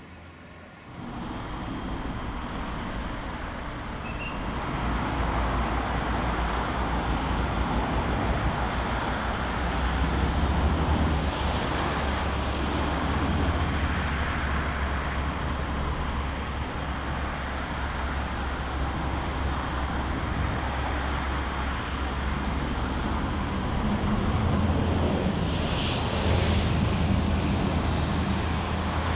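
Passenger trains moving slowly through a station: a steady low rumble of running gear and traction equipment, becoming louder about a second in.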